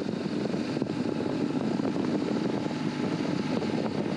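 Motorcycle engine running steadily at low road speed, with wind and road noise, heard from the rider's seat.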